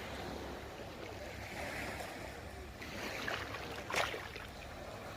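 Sea water washing and splashing, with wind rumbling on the microphone. A short, sharp sound about four seconds in is the loudest moment.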